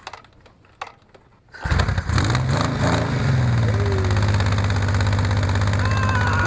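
Motorcycle engine starting about a second and a half in, rising briefly in revs and then settling into a steady idle. It is the bike's first start after a new battery and fuse box were wired in.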